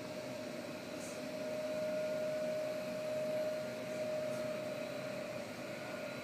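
Steady hum and hiss of building ventilation plant: air-handling units and fans running, with a constant mid-pitched whine over the rush of air.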